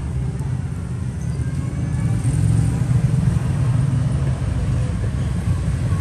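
Low, steady rumble of road traffic, swelling a little about two seconds in.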